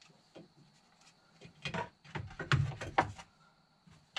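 Knocks and clatter from a gauge panel being handled and pushed into the dash opening of a side-by-side, with a few light clicks and then a dense run of knocks from about a second and a half in, the loudest a dull thump near the middle.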